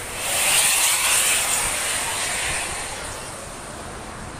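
A road vehicle passing close by, its tyre and engine hiss swelling quickly just after the start and fading away over the next two seconds, over steady traffic noise.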